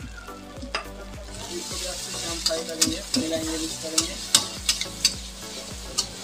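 Hakka noodles being stir-fried in a hot wok: the sizzle grows louder about a second in, and the metal spatula clanks against the wok several times as the noodles are tossed.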